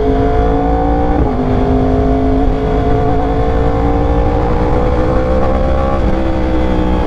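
2021 Yamaha R1's crossplane inline-four running through a loud aftermarket exhaust while riding. The pitch climbs slowly, with brief dips about one and two and a half seconds in, and falls back near the end.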